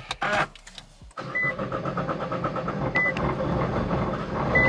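Nissan GT-R's twin-turbo VR38 V6 starting about a second in and then running, growing louder. Three short beeps from the car's warning chime sound at even intervals about a second and a half apart.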